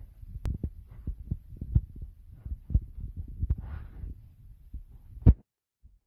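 Irregular soft thumps and rustles of movement close to the phone's microphone, with a louder knock near the end after which the sound cuts off abruptly.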